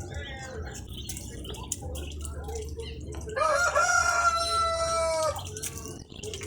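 A rooster crowing once: a single drawn-out call of about two seconds, a little past the middle.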